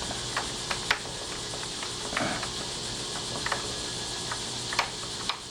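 Scattered light clicks and taps of metal deadbolt parts being handled and fitted into the door's lock hole, heard over a steady hiss.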